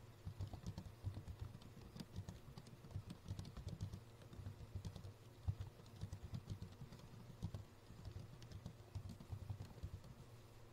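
Computer keyboard being typed on in quick, irregular keystrokes, faint over a low steady hum.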